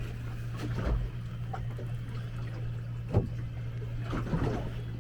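Choppy water slapping and sloshing against the hull of a small fishing boat, with a sharp knock about three seconds in and a steady low hum underneath.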